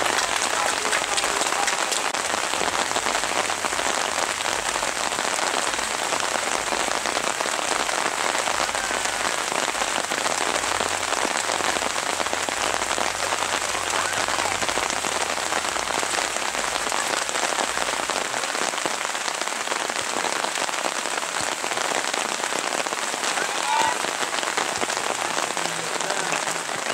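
Steady rain falling, an even hiss of many small drops.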